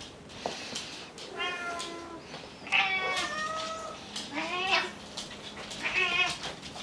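House cat meows, four of them about a second and a half apart, each bending in pitch: cats begging for their dinner.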